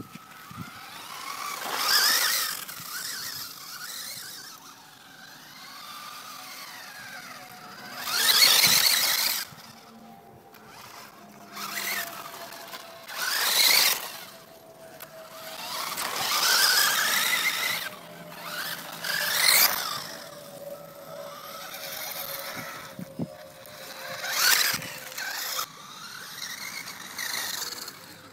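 Electric motor of a radio-controlled toy car whining up and down in repeated bursts as it speeds up and slows, about six bursts, with gritty tyre noise on rough tarmac.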